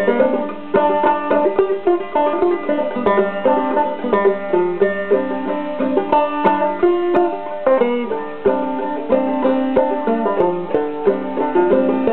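Banjo played clawhammer style, a modal tune in a quick, even run of plucked notes.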